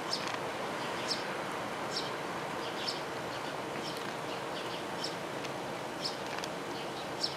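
Short high-pitched chirps repeating about once a second over a steady hiss.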